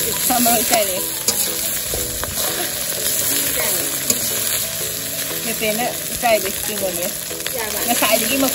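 Egg fried rice sizzling in a hot wok as a metal ladle stirs and tosses it, with short scrapes against the pan.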